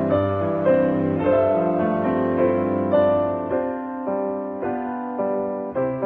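Background piano music: a gentle, slow melody of sustained notes.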